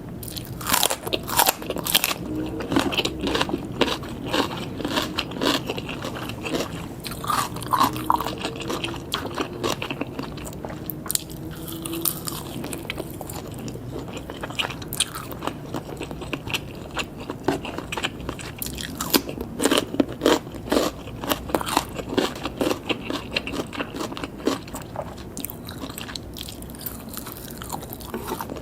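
Close-miked eating of grilled pork and red sausage skewers: biting and chewing with many wet mouth clicks and smacks, busiest near the start and again about two thirds of the way through.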